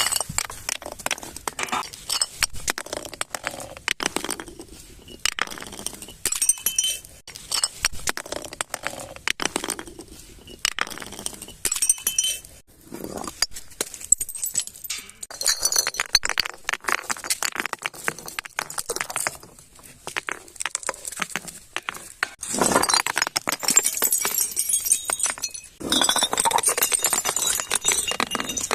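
Glass bottles clinking and shattering in a rapid, irregular run of sharp impacts, some leaving a brief ringing tone. Denser crunching of glass fills most of the last several seconds.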